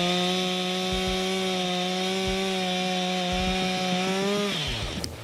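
Chainsaw engine held at high revs while cutting wood, its pitch steady. About four and a half seconds in, the revs drop and the sound falls away.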